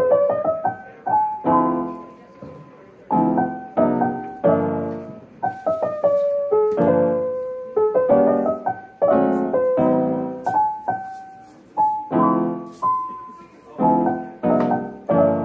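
Background piano music: a slow, gentle melody of struck chords and notes, each dying away.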